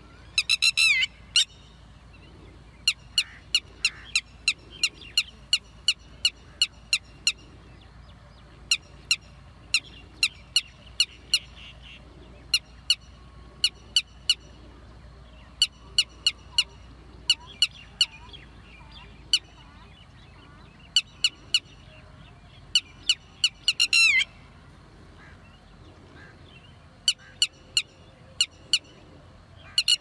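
Red-wattled lapwing calling: short, sharp, high notes in quick runs of several, repeating throughout, with a few faster rattling bursts near the start, about three-quarters of the way through and at the end.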